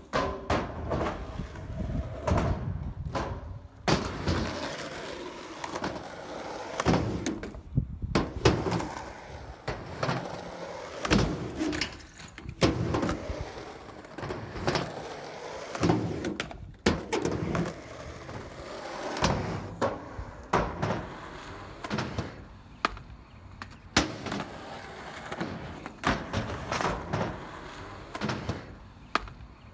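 Skateboard wheels rolling over pavement and ramps, with sharp clacks and slaps of the board popping and landing tricks. The sound breaks off abruptly several times between short clips.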